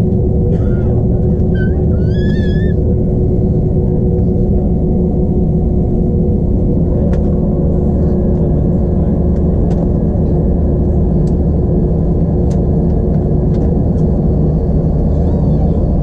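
Steady low rumble and hum of an Airbus A321's engines at low ground power, heard inside the cabin from a seat behind the wing, with a few faint steady tones running through it.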